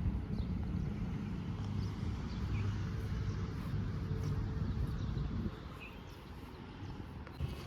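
Low outdoor rumble that drops away about five and a half seconds in, with a few faint bird chirps.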